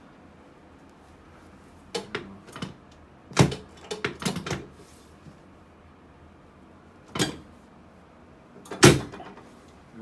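Chiropractic table knocking under hand thrusts on the pelvis: a quick cluster of clunks about two to four and a half seconds in, then single knocks about seven and nine seconds in, the last the loudest.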